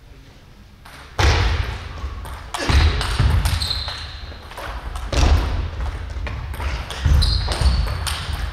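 Table tennis rally on a wooden gym floor starting about a second in: repeated sharp ball strikes and bounces with players' footwork thudding, a couple of brief high shoe squeaks, and echo from a large hall.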